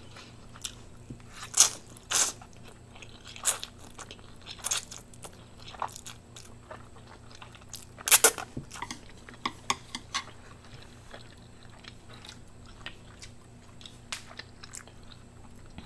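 Mouth sounds of someone eating Indomie Mi Goreng noodles: chewing with soft wet clicks and smacks, loudest about eight seconds in as a mouthful of noodles is drawn in.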